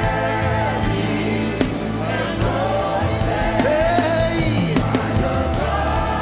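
Live gospel worship music: a band with bass and drums playing a steady groove while voices sing held, sliding notes over it.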